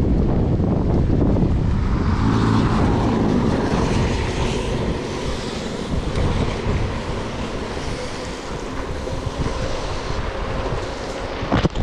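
Wind buffeting the microphone of a moving bicycle, over a steady hiss of rain and tyres on a wet road. A single sharp click comes near the end.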